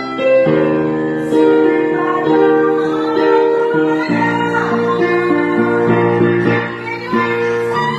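A woman singing over guitar accompaniment, the chords changing every second or so.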